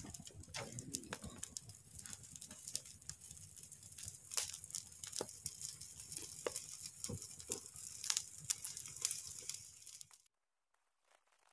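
Open wood fire crackling and popping irregularly over a steady hiss; it cuts off abruptly about ten seconds in.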